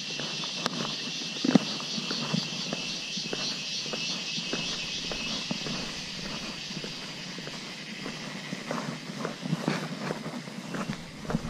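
Footsteps going down concrete steps, irregular knocks at walking pace, with a steady high hiss behind them that fades about halfway through.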